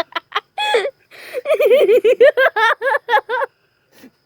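A person laughing hard: a rapid string of high-pitched ha's, a breath drawn in about a second in, then a longer run of laughs that stops shortly before the end.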